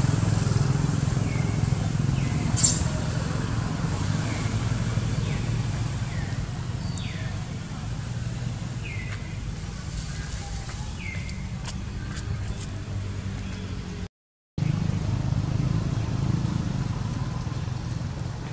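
Outdoor ambience: a steady low rumble with short, high, falling chirps every second or two and one sharp click about two and a half seconds in. The sound cuts out completely for half a second about three-quarters of the way through.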